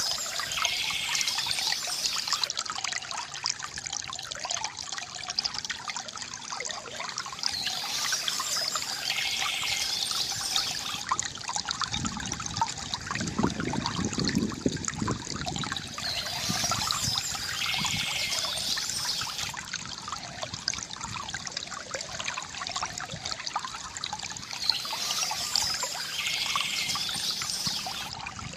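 Stream water trickling and gurgling steadily, with a deeper gurgle for a couple of seconds near the middle. A bird's high song phrase comes in four times at even intervals, about every eight and a half seconds.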